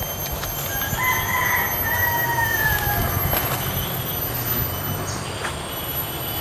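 Steady, high-pitched drone of forest insects such as cicadas, with several shrill whines held throughout. A lower whine enters about a second in and slowly falls away over the next two seconds, over a low rustle of movement through the undergrowth.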